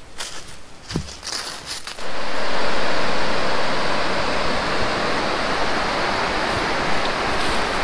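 A few short clicks and rustles, then about two seconds in the steady rush of the Chattooga River's rapids starts abruptly and holds loud and even.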